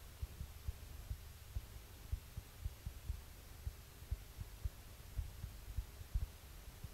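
Low rumble and hum in a Cessna's cabin during the landing rollout, with uneven low thumps several times a second.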